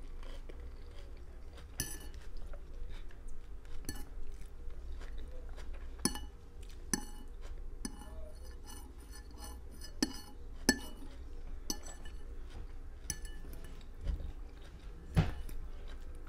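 A metal fork clinking against a plate as salad is speared, a dozen or so sharp, ringing clicks at irregular intervals, with chewing in between.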